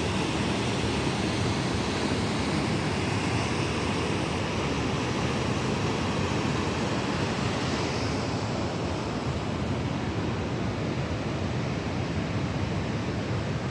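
Steady rush of a creek's fast-running water in the canyon below, an even, unbroken noise.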